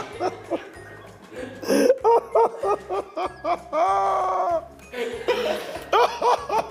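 A man laughing heartily in short, repeated bursts, with one longer drawn-out laugh midway, over background music with a steady beat.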